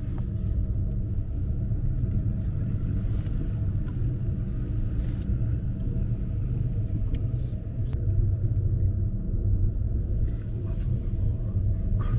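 Steady low rumble inside an Akechidaira Ropeway gondola cabin as it travels along its cable, with a few faint clicks.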